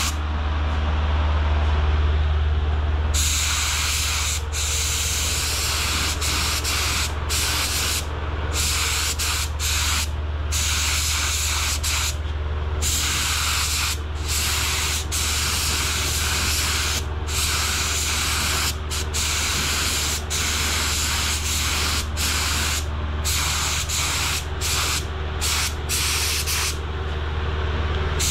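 Air spray gun spraying a coat of sealer: a hiss that starts about three seconds in and then stops and starts many times in short gaps as the trigger is released between passes. A steady low hum runs beneath.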